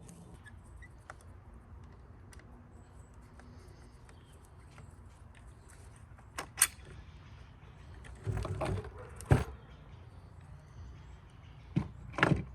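Clicks, knocks and rattles of hand tools and plastic toilet parts being handled while the toilet is unscrewed and taken apart, loudest in a cluster a little past the middle and again near the end, over a faint low hum.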